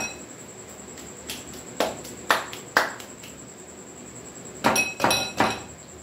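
Metal spoon clinking against a glass mixing bowl while stirring batter: a few sharp ringing clinks, a pause, then a quick run of three near the end.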